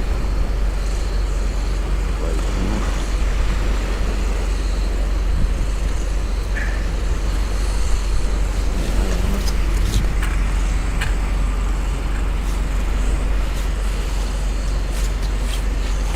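Steady rumbling noise of wind and sea along the shore, with a few light clicks about ten seconds in.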